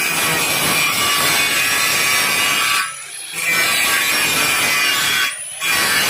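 Angle grinder cutting through steel, a steady grinding-cutting noise that stops briefly twice, about three seconds in and near the end.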